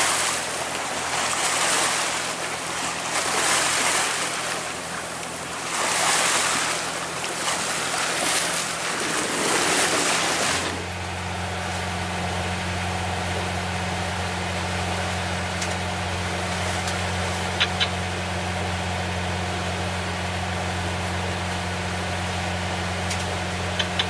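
Sailboat's inboard engine running steadily under power. For the first ten seconds or so it is half buried under a rushing noise of wind on the microphone and water alongside the hull. Then it is a steady low hum, with a few faint clicks near the end.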